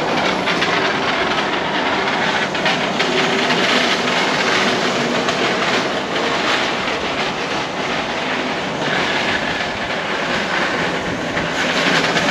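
Small hard wheels rolling over rough asphalt: a steady, clattering rumble with no letup.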